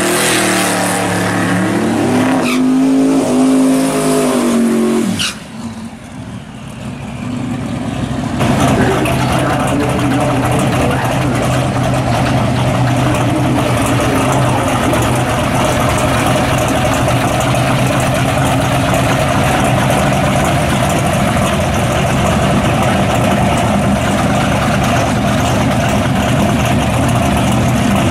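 Twin-turbo 1956 Chevrolet Bel Air drag car engine revving hard through a burnout, its pitch rising and falling, then backing off sharply about five seconds in. From about eight seconds on the engine runs steadily at a loud idle.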